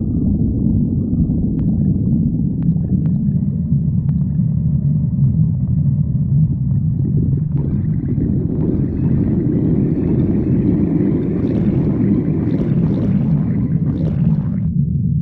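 Hungry stomach growling: a continuous low rumble. About halfway through it turns into a rougher, louder gurgle that stops abruptly near the end.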